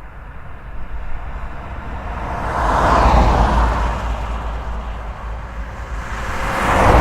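Cars driving past on a road: one swells up and passes about three seconds in, and a second passes near the end, each with a rising and falling tyre and engine rush.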